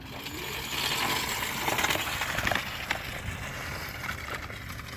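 Pit bike being ridden over loose ground: a noisy, crackling rush of tyres, loudest from about one to three seconds in.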